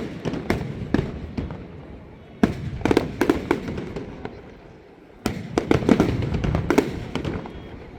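Aerial fireworks going off in rapid volleys of sharp bangs with rumbling echoes. Volleys come at the start, about two and a half seconds in, and again just after five seconds, dying away near the end.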